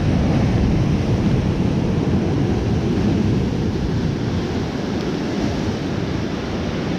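Ocean surf washing ashore mixed with wind buffeting the microphone: a loud, steady rushing noise, heaviest in the low range.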